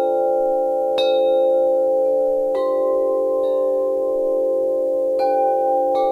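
Wind chimes ringing, struck four times, each a bright clink whose tones ring on and overlap with the others into a sustained hum.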